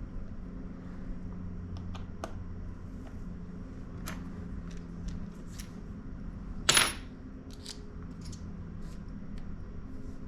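Small metallic clicks and taps of screws and tools being handled on a work surface, with one louder ringing clink about two-thirds of the way through, over a steady low hum.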